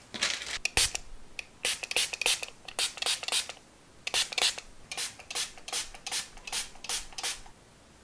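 Spray bottle misting water over unbaked choux pastry on a baking tray before it goes into the oven: a quick series of about twenty short hisses, one per trigger squeeze, with a brief pause midway.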